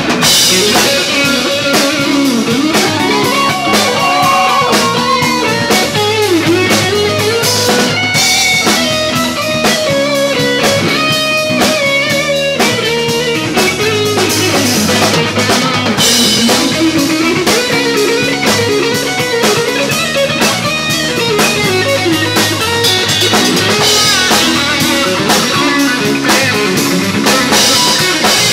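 Live band playing: electric guitar strummed over a steadily beating drum kit, with a melody line that slides up and down in pitch.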